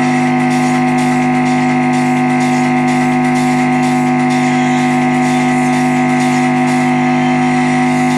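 Loud, steady buzzing hum from a speaker driven by a homemade JLH Class A amplifier: 100 Hz rectified mains hum, blamed on the amplifier's imperfect power supply.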